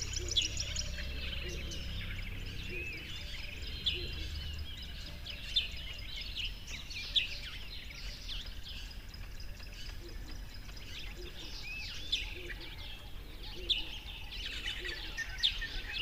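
A chorus of many small birds chirping and twittering, with short, high calls overlapping one another. A low hum lies under the first few seconds and then fades away.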